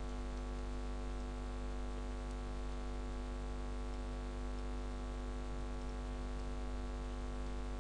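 Steady electrical mains hum on the recording line: a low, unchanging buzz with many overtones.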